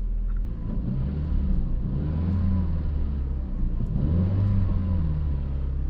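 Jeep Renegade's 2.4-litre four-cylinder engine being revved about three times, the pitch rising and falling back to idle each time. It picks up well on the throttle, with no misfires showing.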